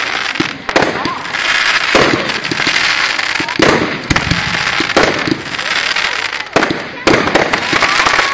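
Aerial fireworks bursting: a run of sharp bangs, several coming close together, over continuous crackling.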